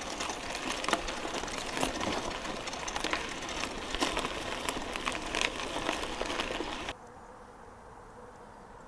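Bicycle tyres rolling over a forest path, crackling and ticking over pine needles, twigs and bumps as the bike rattles. It cuts off abruptly about seven seconds in, leaving only a faint steady background hiss.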